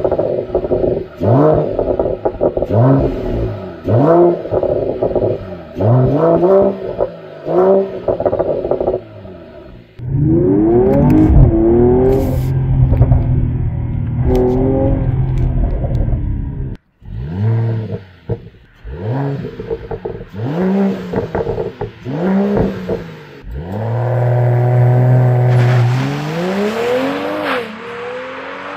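Stock exhaust of a Mercedes-AMG CLS 53's 3.0-litre turbocharged inline-six: about ten quick revs blipped in a row. Then, heard from inside the cabin, the engine accelerates hard with rising revs cut by upshifts. Near the end come more blips and a long pull rising in pitch as the car accelerates away.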